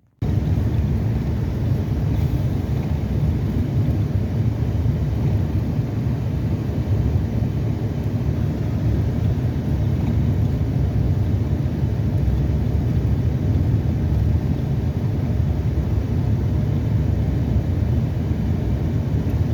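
Steady low road and engine noise inside a moving car's cabin, cutting in suddenly at the start.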